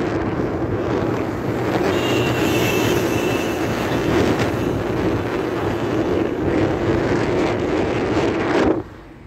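A car driving across a bridge, heard through an open side window: a loud, steady rush of tyre and wind noise. It cuts off sharply near the end.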